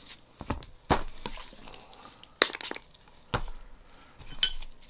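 About five sharp clicks and knocks spread over a few seconds, with light scuffing between them: Glock pistol parts being picked up and handled on a work surface during cleaning.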